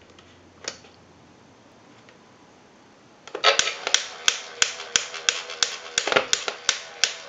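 A single switch click, then the Goofy animated lamp's motor-driven animation mechanism starts about three seconds in: a steady motor hum with a sharp click about three times a second. The clicking is the lamp's mechanical fault.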